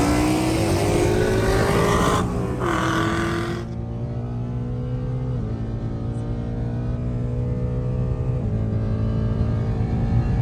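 V8 muscle cars racing at full throttle: first a car passing close by with its engine note rising, then a sudden change to the muffled sound inside the chasing car's cabin, its V8 pulling hard and shifting up twice, about five and eight seconds in.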